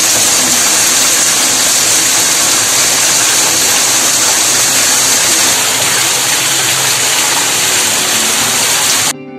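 Heavy monsoon rain, with rainwater gushing down concrete steps and pouring from a drainpipe. It makes a loud, even rushing hiss that cuts off suddenly near the end.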